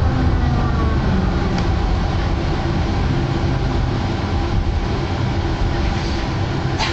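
Puma 118N tram heard from inside, running along the track with a steady low rumble. A whine falls in pitch and fades in the first second, and there is a sharp click near the end.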